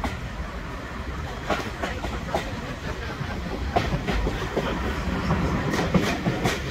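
Heritage diesel train running along the line, heard from an open carriage window: a steady low rumble with sharp clicks from the wheels passing over rail joints, some in pairs.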